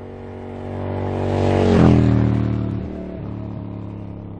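A motor vehicle's engine passing by: it grows louder to a peak about two seconds in, its pitch drops as it goes past, and then it fades away.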